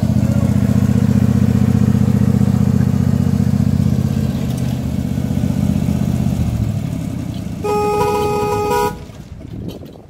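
Engine of an eighth-inch-scale ride-on miniature train locomotive running as it passes close by, fading after about four seconds as the train moves off. Near the end comes a single horn blast about a second long.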